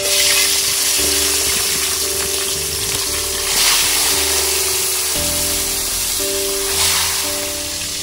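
Whole fish frying in hot oil in a wok: a loud sizzle that starts suddenly as the first fish goes in, then swells twice more, about three and a half and seven seconds in, as more fish are laid in. Background music plays underneath.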